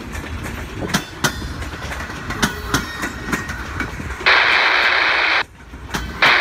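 Wheels of empty military flatcars clicking over the joints of jointed rail, a sharp clack every fraction of a second. About four seconds in, a loud steady hiss starts abruptly and covers them. It cuts off suddenly a second later and starts again near the end.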